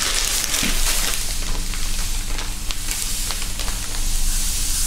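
Sand pouring from a plastic bag into a plastic cup: a steady grainy hiss with small ticks of falling grains.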